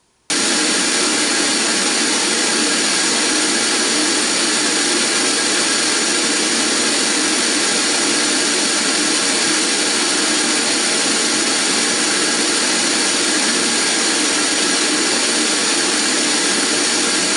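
Pink noise played through a Diamond Audio MS Pro 65 6.5-inch pro-audio-style midrange speaker in a motorcycle fairing pod: a steady, loud hiss that switches on abruptly just after the start, with little deep bass. The speaker's response has a peak at about 200 Hz and is pretty hot in the upper midrange.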